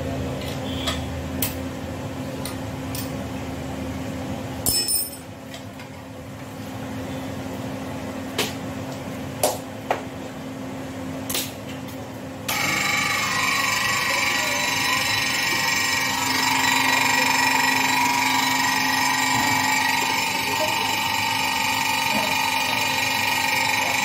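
A steady machine hum with scattered sharp clicks and taps. About halfway through, a louder, steady whine carrying several high tones cuts in abruptly and keeps going.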